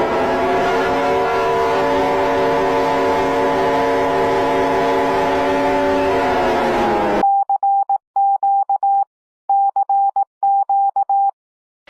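Emergency-alert-style alarm tones: a loud, steady chord of several held tones over hiss for about seven seconds, which cuts off abruptly, followed by a single beeping tone in short, uneven groups of pulses.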